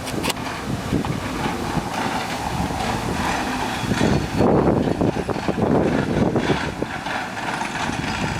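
CAT 315 GC excavator's diesel engine running under work, with a fast, rough pulsing, louder from about four seconds in.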